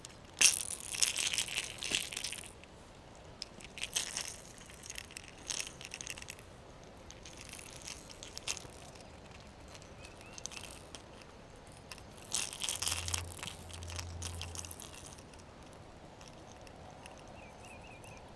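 Irregular bursts of rustling, crinkling handling noise close to the microphone, with a few sharp clicks, as an angler's hands work a fish and lure.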